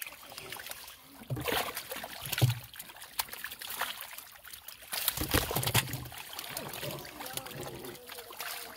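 Water splashing and sloshing as hands grab among live catfish crowded in shallow water. The splashes come in irregular bursts, the loudest about two and a half seconds in and again around five seconds in.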